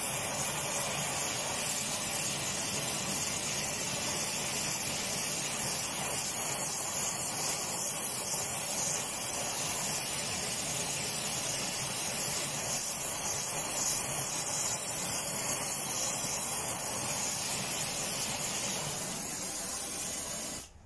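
Gas torch flame hissing steadily as it heats the clamped body of a bent Record 010 rebate plane to straighten it, then stopping abruptly near the end.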